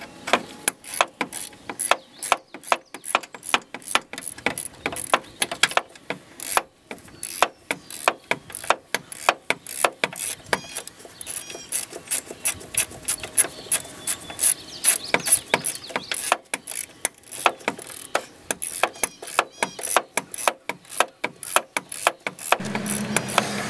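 Ratchet wrench clicking in quick, uneven runs, about two to four sharp metal clicks a second, as a fitting on the car's air-conditioning lines is tightened.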